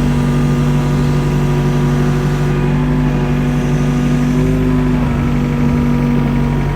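Mini excavator engine running steadily at an even pitch while digging.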